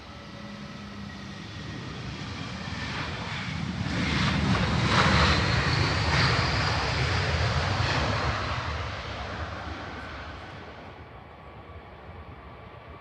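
Jet airliner passing close by: its engine noise swells over a few seconds, peaks near the middle, then fades away, with a steady high whine over the roar.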